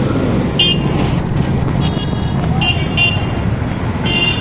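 Chennai city buses' engines running close by in traffic, with about four short vehicle-horn toots, two of them close together near the middle.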